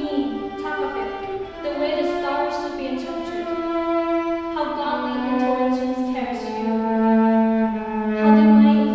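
Solo cello played with the bow: slow, sustained notes that change pitch every second or so, swelling louder toward the end.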